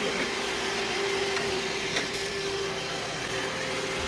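iRobot Roomba i7+ robot vacuum running, a steady hum.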